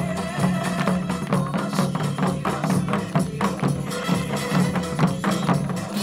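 Janggu drums struck in a quick, steady rhythm along with a recorded trot backing track.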